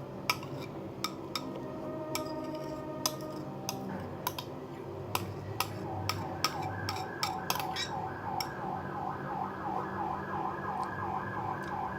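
Sharp clinks of utensils against dishes and a glass, scattered irregularly over a low steady hum. About halfway in, a warbling siren-like tone starts and carries on, wavering about three times a second.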